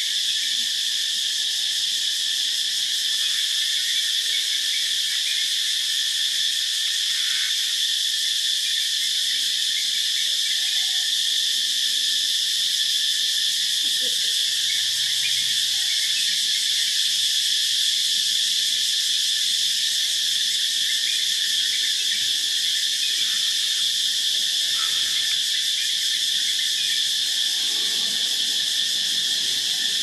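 Cicadas calling in chorus: a loud, steady, high-pitched drone that does not let up.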